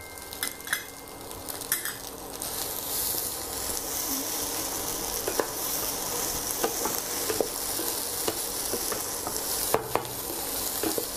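Fried rice sizzling in a non-stick pan while a wooden spatula stirs and scrapes through it, with scattered light knocks of the spatula against the pan. The sizzle grows louder after about two seconds and then holds steady.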